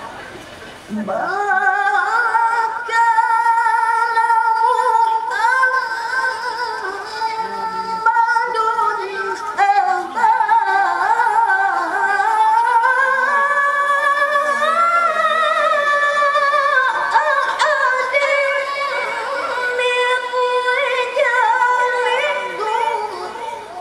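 A woman's solo melodic Qur'an recitation (tilawah), sung into a microphone in long held notes with ornamented turns, starting about a second in.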